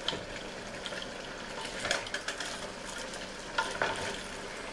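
Wooden spoon stirring and folding egg noodles into a pot of simmering oxtail stew: wet scrapes and soft knocks over the steady hiss of the cooking pot, with bunches of strokes about two seconds in and again towards the end.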